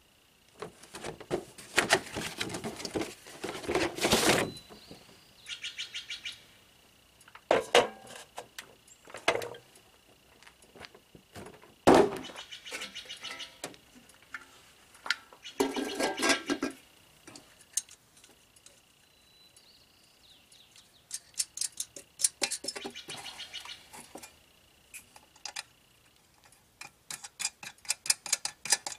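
Hands working on a round metal air cleaner housing and its paper filter element during an air filter change. There is scraping and rustling, a sharp metal clank about twelve seconds in, and bursts of rapid clicking later on. A faint steady high tone runs under it until shortly before the end.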